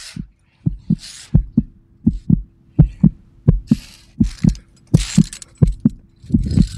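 Heartbeat: paired low lub-dub thumps, evenly spaced at about 85 beats a minute, with short bursts of breathy hiss between some beats.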